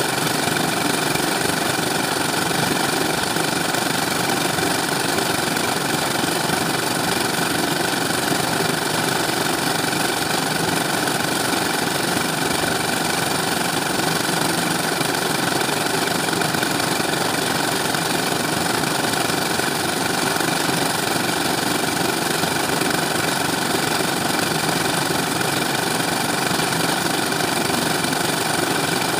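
Portable concrete mixer running steadily: its small engine drives the rotating drum through a belt and pulley.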